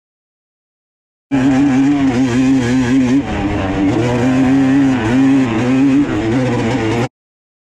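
A loud motor running with a buzzing pitch that wavers up and down. The sound cuts in suddenly about a second in and cuts out abruptly near the end, leaving dead silence.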